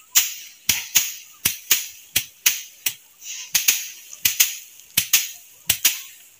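Sticks beating a pile of harvested rice stalks to thresh the paddy by hand: sharp, dry strikes at about three a second, at an uneven beat.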